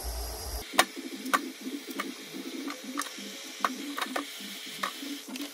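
Kitchen food-prep noises: a run of sharp, irregular clicks and knocks, roughly one or two a second, over a light clatter.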